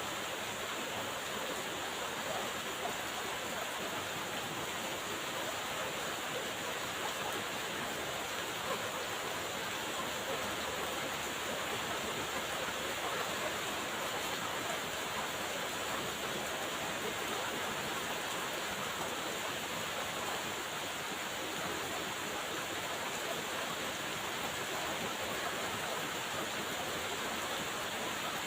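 Steady rain falling, an even hiss that does not change or break.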